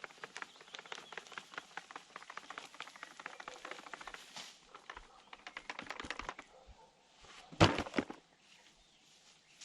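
Grass clippings rustling and crackling as they are handled and spread over a potato bed: a fast run of small crackles that stops about six seconds in, then one louder brief rustle near the end.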